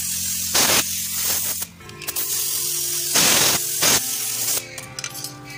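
Three short, loud hissing blasts of spray as the dismantled brake parts are cleaned, with a few light clicks near the end. Background music runs underneath.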